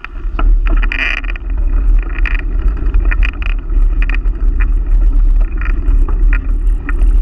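Wind buffeting the microphone of a camera riding on a moving bicycle, a loud steady low rumble, with tyre noise on the rough paved trail and small clicks and rattles from the bike.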